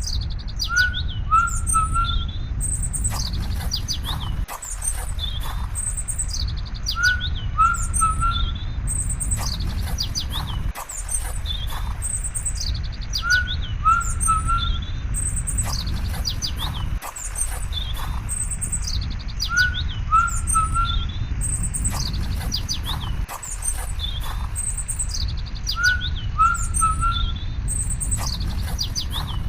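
Several birds chirping and calling over a steady low rumble; the same stretch of birdsong repeats identically about every six seconds, as in a looped recording.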